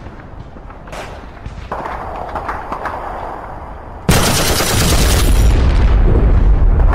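War-film sound effects: a few scattered gunshots, then about four seconds in a sudden loud explosion with a heavy low rumble that carries on.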